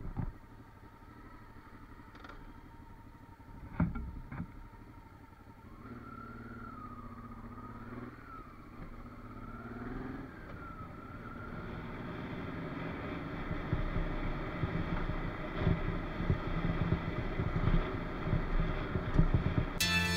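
Honda Africa Twin XRV 750's V-twin engine idling with two sharp knocks, then pulling away with revs rising and falling. In the second half the engine is joined by a rough, rattling rumble that grows louder as the bike rides over cobblestones.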